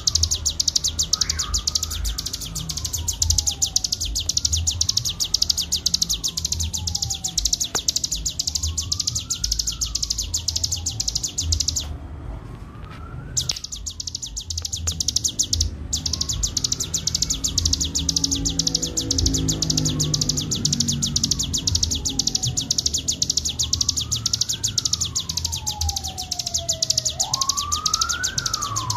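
Ciblek gunung (a prinia) singing its continuous, very fast buzzing trill, the 'ngebren' song, which breaks off for a moment about halfway through. Under it a slow whistle rises and falls, repeating every three to four seconds.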